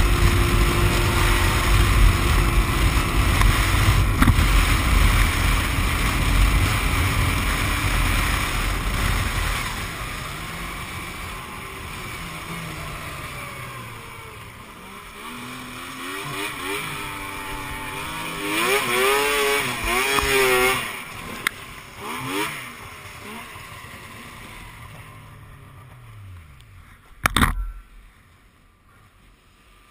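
Yamaha snowmobile engine running at speed, then easing off about a third of the way in, with a few revs that rise and fall in pitch. A single sharp knock comes near the end, and the sound drops low.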